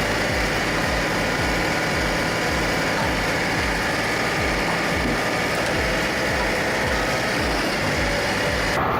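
Engine running steadily with a low, rhythmic rumble, as of heavy machinery at work; the sound changes abruptly just before the end.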